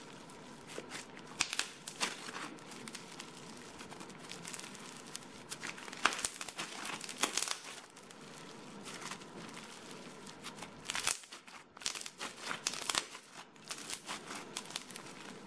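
Slime being stretched and kneaded by hand: a soft white glue slime with an old, hardened yellow slime being worked into it, giving faint, irregular crackles and sticky clicks as it pulls apart and folds.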